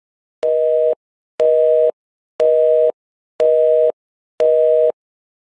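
Telephone busy signal: a steady two-note tone beeping on and off about once a second, five half-second beeps.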